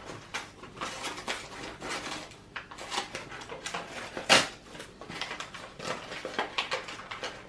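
Small plastic packaging and trinkets being handled: scattered light clicks and crinkly rustles, with one sharper click about four seconds in.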